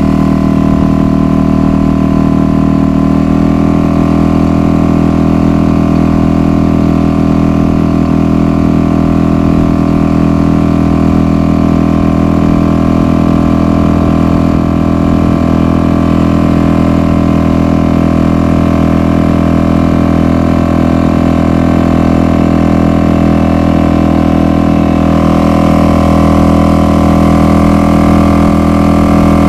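Suzuki DF 2.5 four-stroke single-cylinder outboard motor running steadily, pushing an inflatable dinghy along under way. Its note shifts slightly about three seconds in and turns a little louder and brighter near the end.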